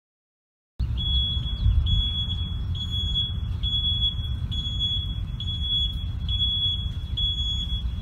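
A school bus's loud backup alarm beeping in reverse: one high, single-pitched beep about once a second, eight times, starting about a second in. A low rumble runs underneath.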